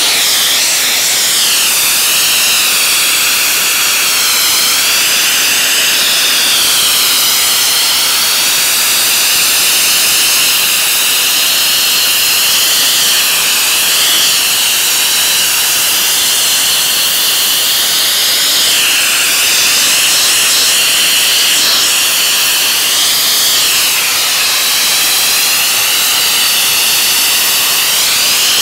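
TECHNIKOR wet abrasive blaster's nozzle blasting paint off steel with compressed air, water and grit: a loud, steady high hiss whose tone wavers up and down.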